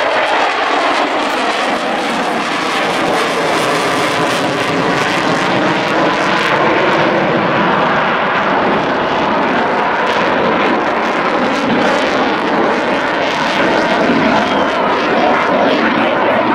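Loud, steady engine noise from a US Navy EA-18G Growler's twin General Electric F414 afterburning turbofans as the jet banks overhead, its pitch wavering slowly.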